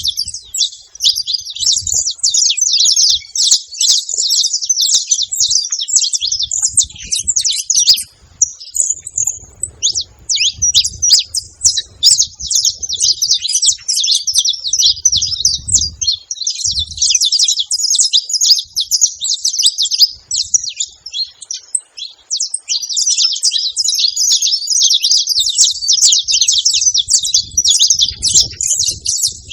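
Saffron finches (canário-da-terra) chirping in a dense, fast stream of high, quick notes, with brief lulls about eight and twenty-two seconds in.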